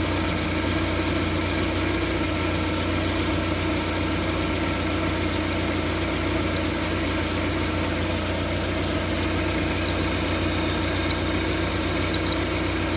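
VAZ 2112 1.6 16-valve engine idling with a steady squeak from the alternator drive belt. The squeak comes from the belt itself, not from the alternator bearings or the idler rollers.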